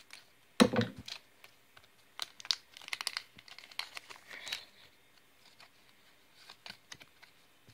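Foil wrapper of a Pokémon card booster pack crinkling and crackling as it is cut open with scissors and handled, with a louder knock about half a second in. After about five seconds it turns quieter, with only a few faint ticks.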